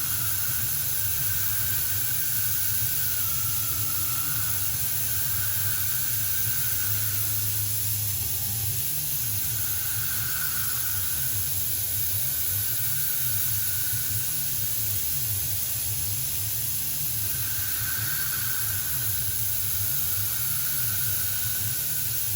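CNC milling machine at work: a steady hiss with a low fluctuating rumble and a faint whine that wavers and comes and goes every few seconds.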